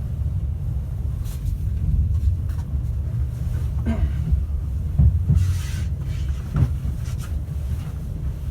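Inside a Class 390 Pendolino electric train: a steady low rumble from the running train, with a few short knocks and a brief hiss around the middle.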